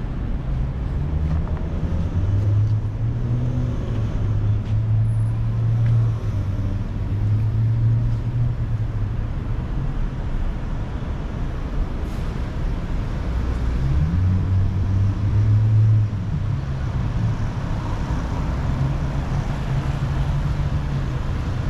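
Road traffic: a low, steady engine hum with a rise in pitch about fourteen seconds in as a vehicle speeds up.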